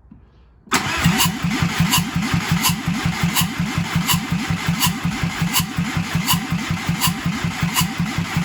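Seat Arosa's 1.9 TDI diesel engine being cranked over on the starter motor, starting suddenly under a second in with a fast, even chuffing and a sharp tick about every 0.7 s. With no intake or exhaust manifolds fitted, the open ports make the noise. It does not catch: the engine is cold, the glow plugs are off and the fuel system has not yet filled with fuel.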